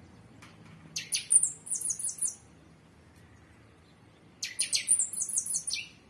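A small bird singing two short bursts of rapid, high-pitched chirps, about three seconds apart.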